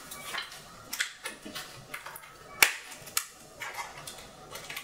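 Handling noise: tissue paper rustling and small clicks and taps as playing card decks and plastic card cases are picked up and set down, with one sharp click about two and a half seconds in.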